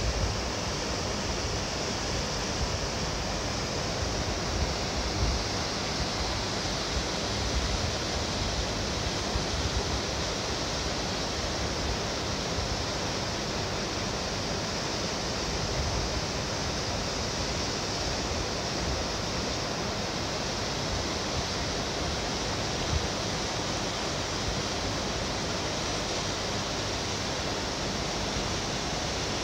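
Steady rushing of water spilling from the outlets below Toyomi Dam: a constant even hiss with an unsteady low rumble underneath.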